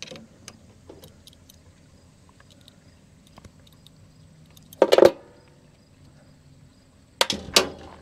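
Metal tools clinking on the water heater's brass gas fittings while the gas valve is being unscrewed: scattered small clicks, a louder metallic clatter about five seconds in, and two sharp knocks near the end.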